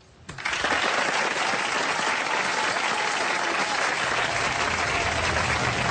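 Studio audience applauding steadily, starting about half a second in.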